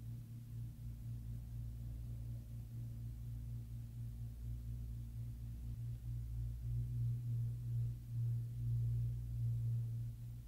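A steady low hum that grows louder in the second half.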